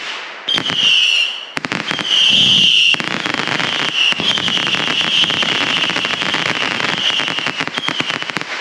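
Fireworks going off: a high, shrill whistle held for several seconds over rapid crackling and sharp pops.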